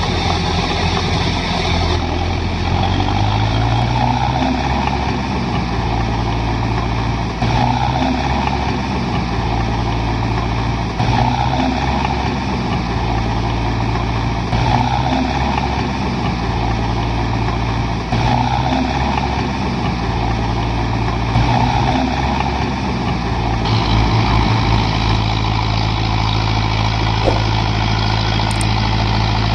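Mahindra Arjun Novo 605 DI-MS tractor's diesel engine running under load in deep paddy mud. Its pitch steps up and down every three or four seconds.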